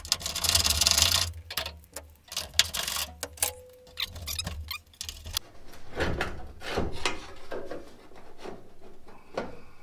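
Clicking and rattling of a wrench on a truck's 9/16 hood hinge bolt as it is loosened, followed by scattered clinks, knocks and scrapes as a metal hood brace bracket is fitted against the underside of the hood.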